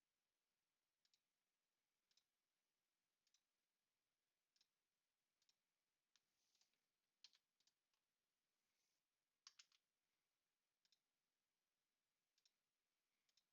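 Very faint computer mouse clicks, many in quick pairs, roughly once a second over near silence, with a tight run of three a little after halfway.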